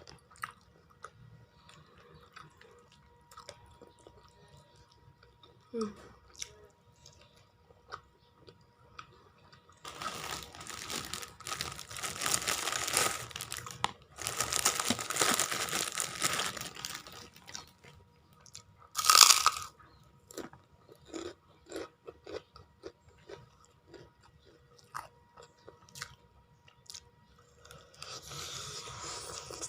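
Close-up eating sounds: a person biting and chewing crunchy food, with two long stretches of loud crunching in the middle and one sharp, loud crunch a second later, between smaller mouth clicks and chews.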